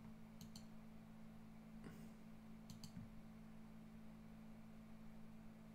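Computer mouse button clicked twice, about two seconds apart, each click a quick press-and-release pair, over a faint, steady, low electrical hum.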